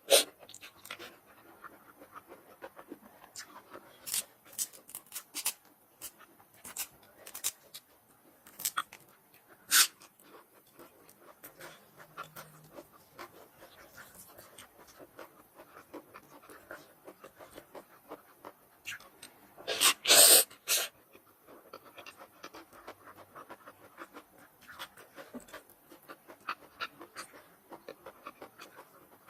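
Close-up eating sounds: chewing, with many small sharp crunches and clicks from noodles and fresh vegetables, and two louder noisy bursts about twenty seconds in.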